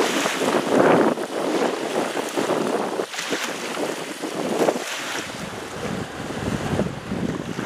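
Small waves lapping and splashing over flat shore rocks, with wind on the microphone. About five seconds in, the wash gives way to a steadier sound with a low rumble underneath.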